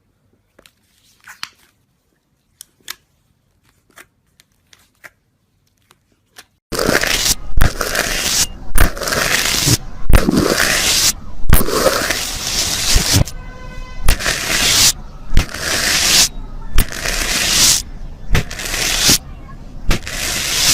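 A few faint clicks and squishes, then, about a third of the way in, loud crunching and crackling in bursts of about a second with short gaps, as something crunchy is pressed or crushed close to the microphone. A short squeaky tone sounds about halfway through.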